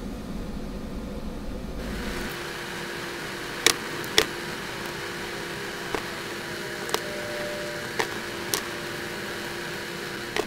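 Steady static hiss and hum from a faulty recording, with about seven sharp clicks and taps scattered through, as small metal parts and tools are handled during RC axle assembly.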